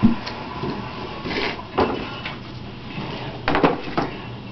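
Handling of a cardboard toy box and plastic playset parts: a thump at the start, then scattered rustles, and a quick cluster of sharp clicks and clatters about three and a half seconds in.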